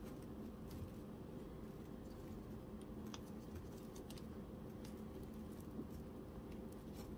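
Faint, scattered clicks and light taps of the plastic fuser assembly and its wire connectors being handled with nitrile-gloved hands, over a steady low background hum.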